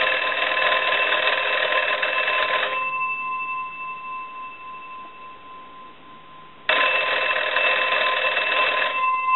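The twin bell gongs of a Wesco wooden wall crank telephone ringing on an incoming ring cycle from a line analyzer: two rings of nearly three seconds each, about four seconds apart, with the gongs' tone lingering faintly in between. The ringing shows that the repaired and converted ringer answers a phone-company-style ring signal.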